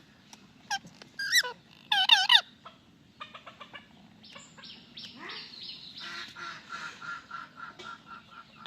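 Indian ringneck parrot giving three loud, warbling calls in the first two and a half seconds. Quieter chattering follows: a quick run of clicks, then a series of short repeated notes, about five a second.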